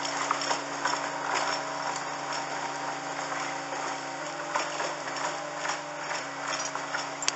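Steady engine hum from the railway worksite plant, with irregular metallic knocks and clanks from work on the track.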